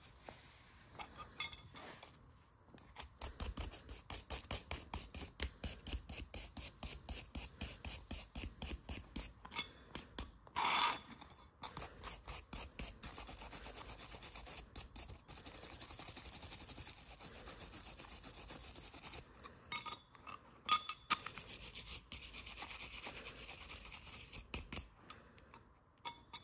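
Wire brush scrubbing burnt paint and residue off a small die-cast metal toy truck body, in quick back-and-forth strokes at about four a second, then steadier scrubbing. A few sharp clinks break in, near the start, midway and about three-quarters through.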